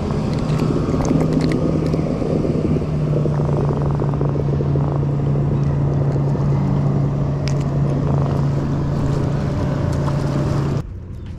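Motorboat engine running past with a steady low hum over wind and water noise. It cuts off abruptly near the end.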